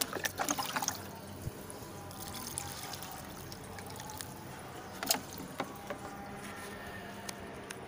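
Water poured from a container into a waterlogged sack of soil, trickling and splashing into the standing water, with a few light clicks.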